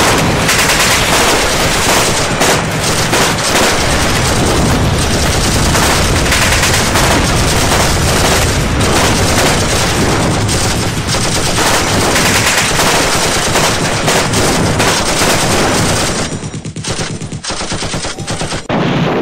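Dense, sustained automatic gunfire, many bursts overlapping; it thins out a few seconds before the end, then comes back loud.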